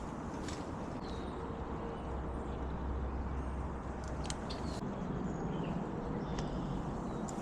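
Outdoor background sound: a low rumble that swells between about one and five seconds in, with a few faint, short high chirps like birds and some light clicks.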